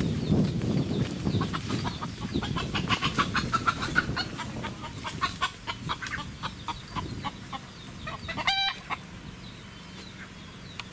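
Chicken clucking in a quick run of short clucks, with one brief pitched squawk about eight and a half seconds in. Low rustling in the first second or so.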